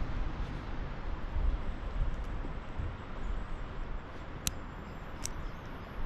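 Wind rumbling unevenly on the microphone outdoors. Near the end come a couple of faint sharp clicks from a lock pick working in a padlock.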